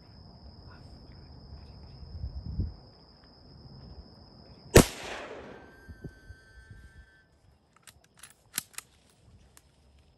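A single rifle shot at a wild boar about halfway through, its report echoing and fading over about a second. A few sharp clicks follow near the end.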